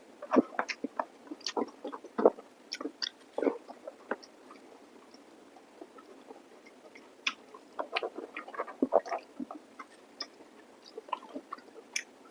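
A person eating close to the microphone: wet chewing with irregular mouth smacks and clicks. The sounds come in clusters, with a sparse stretch from about four to seven seconds in.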